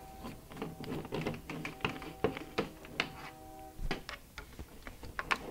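Plastic rustling and light clicks as black sheathing tubing is handled and worked over the wire lead, with a faint steady tone underneath that stops about four seconds in.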